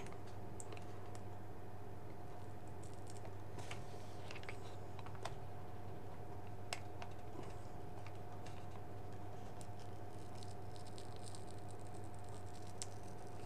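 Scattered faint clicks and light crackles from the glued plastic case of a small TFT monitor being twisted and prised apart by hand, the glue separating. A steady low hum with a thin tone runs underneath.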